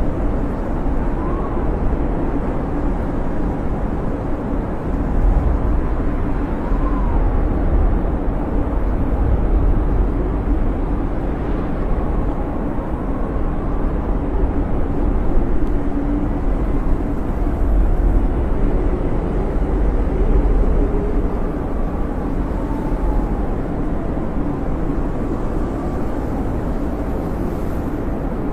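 Howling snowstorm wind: a steady deep rumble with faint whistles that rise and fall in pitch now and then.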